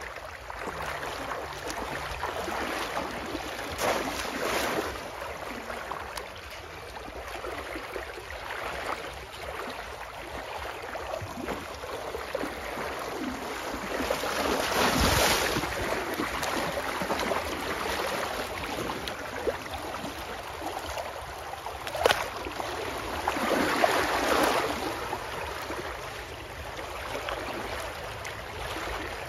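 Water splashing and sloshing as a person wades through shallow water and plunges a bamboo polo fish trap down into it and lifts it out. There are several louder splashes and one sharp knock about 22 seconds in.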